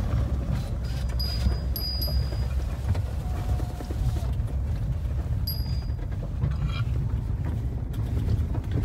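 Mahindra Thar driving along a rough dirt-and-gravel road, heard from inside the cabin: a steady low rumble of engine and tyres, with a few short, faint high squeaks.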